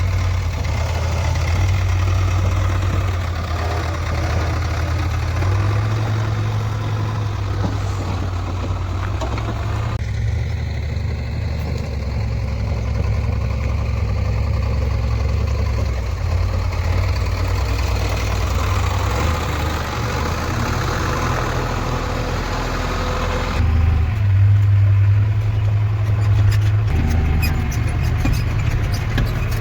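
Diesel engine of a JCB backhoe loader running with a steady low drone, its sound changing abruptly twice. A fast ticking rattle comes in near the end.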